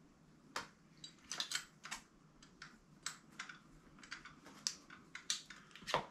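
Light, irregular clicks and taps of small bolts and metal fittings being handled while a mid-drive motor is fitted into a bicycle's bottom bracket, about three clicks a second.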